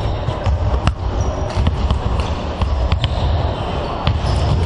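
Basketballs bouncing on a hardwood court, sharp thuds at irregular intervals, over the steady background din of a large sports hall.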